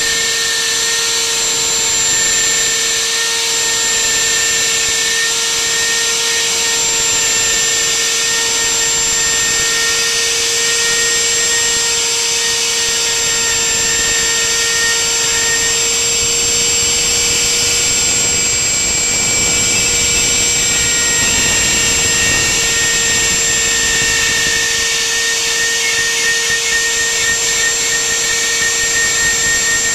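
Homemade CNC router's spindle running with a steady high whine while its end-mill bit carves grooves into a wooden board, with the noise of the cut under it.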